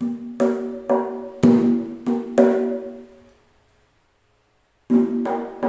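Kendang jaranan (aselole hand drum) with a hide head, struck by hand in a quick pattern of about six strokes, then a pause and a new run of strokes near the end; each stroke rings with a clear pitch. The head is still slack and untuned, called "still raw" and "still loose" before tuning.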